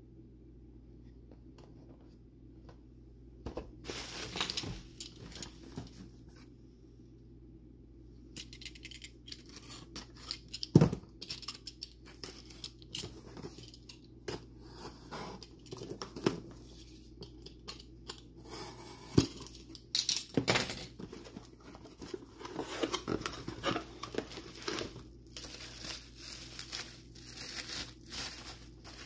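Unpacking a cardboard shipping box: packing tape being slit with a box cutter and torn, cardboard flaps handled, and bubble wrap crinkling, with a few sharp knocks among the rustling. The first few seconds are only quiet room tone.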